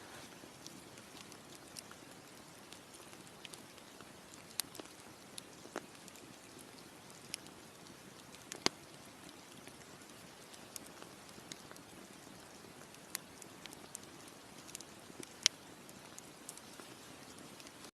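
Campfire crackling: irregular sharp pops and snaps over a soft steady hiss, with two louder pops, one just before the middle and one near the end.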